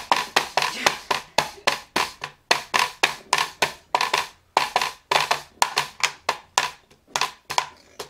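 Hard plastic Etch A Sketch drawing toy drummed on like a drum set, a quick run of sharp taps at about four a second.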